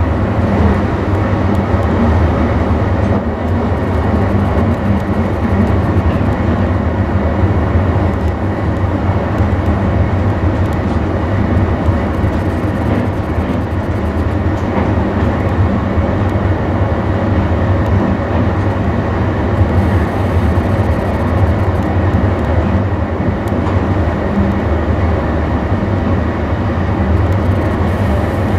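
Steady running noise of a moving electric passenger train heard from the driver's cab: a continuous low rumble with wheel and rail noise.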